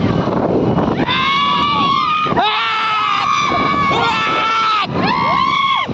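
Three long, high-pitched held cries from a person's voice, the middle one the longest, over the steady running of motorcycle engines and wind on the microphone.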